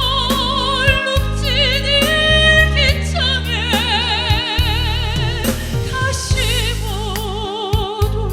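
Female pop-opera singer holding long notes with wide, even vibrato over a backing track.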